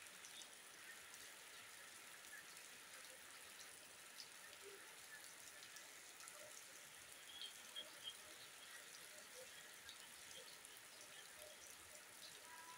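Steady rain falling on foliage and wet ground: a faint, even hiss. Three short high chirps come near the middle.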